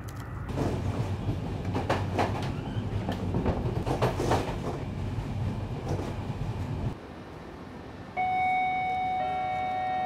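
Passenger train running with a steady rumble and repeated clattering, which cuts off abruptly about seven seconds in. About a second later music starts with long held notes.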